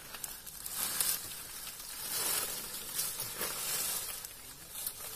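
Dry leaves and brush rustling and crackling irregularly under an elephant's feet as it walks over littered ground.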